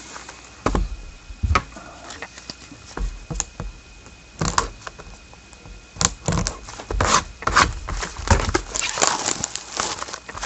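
Plastic wrap crinkling and tearing and cardboard being handled as a sealed trading card hobby box is unwrapped and opened: scattered sharp crackles and clicks, sparse at first and busier in the second half.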